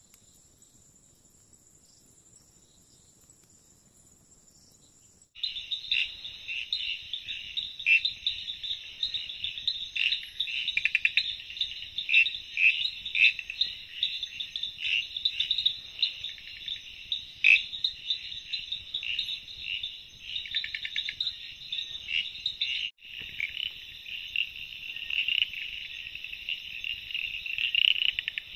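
A faint, steady, high insect buzz, then about five seconds in a loud night chorus of frogs and insects cuts in abruptly: a dense mass of chirping and rapid pulsed calls. It breaks off for an instant a little after twenty seconds, then resumes.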